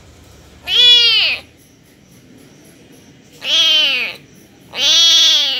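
Young tabby kitten meowing three times, each a high meow that rises and then falls in pitch, the last two close together.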